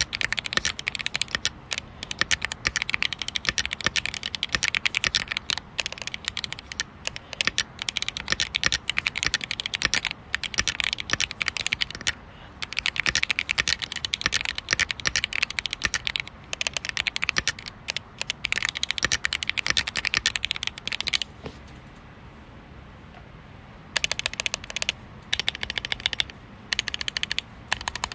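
Fast typing on an irocks K104H keyboard: a dense, rapid clatter of keystrokes. There is a short break about twelve seconds in and a pause of about three seconds about three-quarters of the way through.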